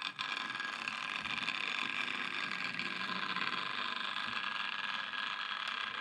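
Hornby Dublo three-rail N2 tank engine's motor and gears running on the track with a steady whirring whine, starting abruptly at the beginning as power is applied. The engine is running poorly, barely moving round the loop.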